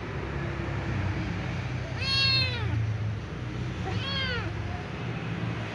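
Young ginger-and-white cat meowing twice: a longer call about two seconds in, its pitch arching and then falling away, and a shorter one about four seconds in.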